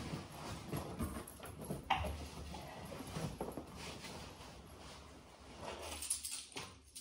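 Scattered knocks, clicks and rustles of things being handled and moved, with a short low thud about two seconds in.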